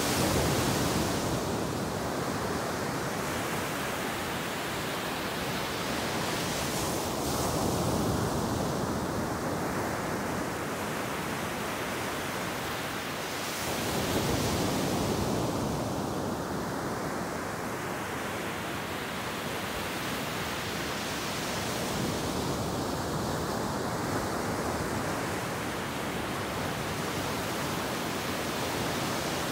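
Ocean surf breaking on a beach: a steady wash of foaming water, with a wave crashing in and swelling louder every seven or eight seconds.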